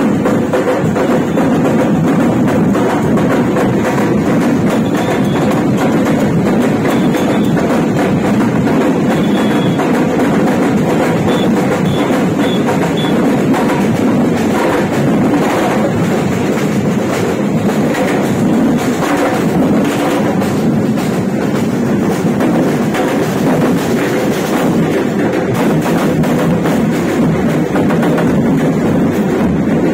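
A large group of marching drums, mostly metal-shelled snare-type drums, beaten with sticks in a fast, dense, unbroken rhythm.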